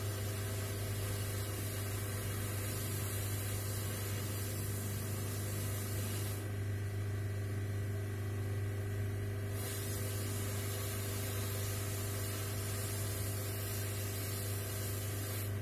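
Hot air rework station blowing on a MOSFET in a desktop motherboard's VRM section, melting the solder to seat the part: a steady hiss of air over a strong low hum. The hiss thins out for about three seconds midway.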